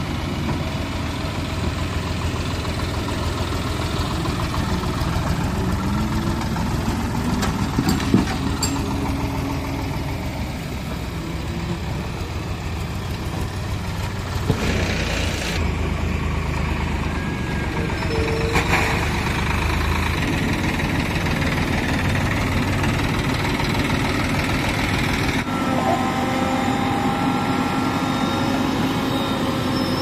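Diesel engines of a JCB 3DX backhoe loader and a tractor running steadily, with a couple of sharp knocks.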